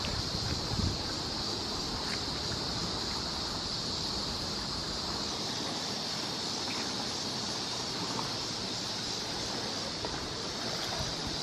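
Steady outdoor background noise: wind rumbling on the microphone under a constant high-pitched hiss, with a few faint ticks.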